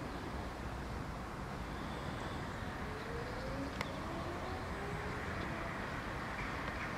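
Steady outdoor background noise of a residential street, a low even hum of distant traffic, with faint slowly rising tones around the middle and a single sharp click just before four seconds in.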